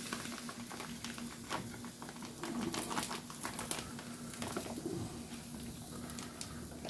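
Plastic bag of pre-cooked pulled pork crinkling and crackling as the meat is squeezed out of it into a saucepan, over a steady low hum.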